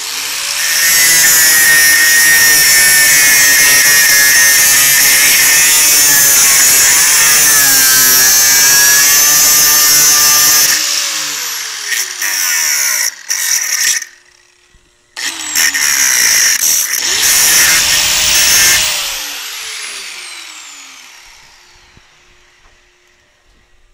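Angle grinder with a cutoff wheel cutting stainless steel woven wire mesh grate: a loud, high-pitched screech with a wavering pitch as the wheel bites the mesh for about ten seconds. The grinder then winds down with a falling pitch, gives a few short bursts, stops, runs again for about four seconds and spins down to quiet near the end.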